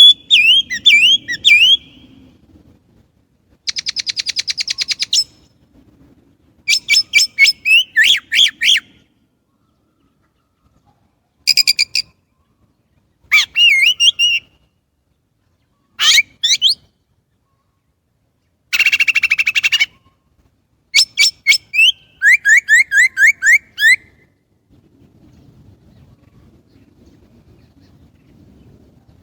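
Chinese blackbird singing: a string of varied phrases a second or two long, separated by short pauses. The phrases mix fluty warbled notes, a fast buzzy trill and quick runs of repeated chattering notes.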